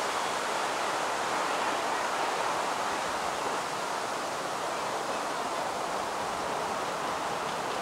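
Steady rushing hiss of woodland ambience as a 7¼-inch gauge miniature steam train with loaded passenger carriages rolls towards the listener along the track.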